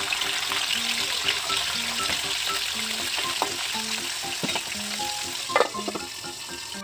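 Small whole fish deep-frying in hot oil in a steel wok, sizzling loudly, with a metal spatula clicking and scraping against the pan. The sizzle grows quieter near the end as a lid is set on the wok.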